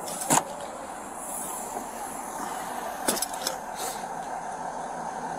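Steady engine noise from idling vehicles, with a couple of short, sharp clicks: one about a third of a second in, and another a little after three seconds in.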